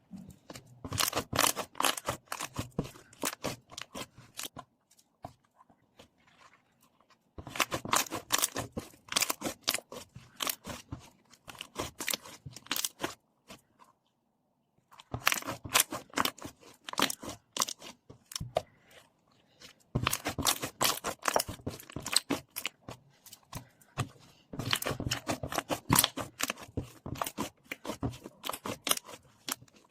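Cream slime being squished, stretched and pressed by hand, giving dense crackling pops and clicks in several bursts of a few seconds, separated by short pauses.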